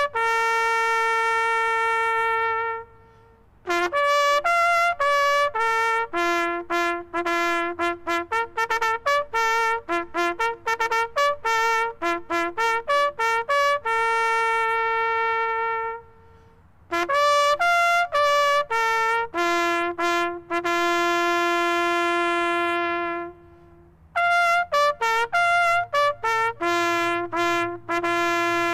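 Solo trumpet playing a bugle call: quick runs of short notes between long held notes, with three brief pauses.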